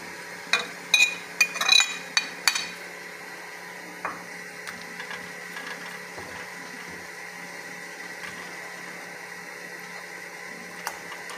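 A steel spoon clinking against a plate and a steel saucepan as whole spices are scraped off the plate into water. There is a quick cluster of sharp, ringing clinks in the first three seconds, then a few faint taps.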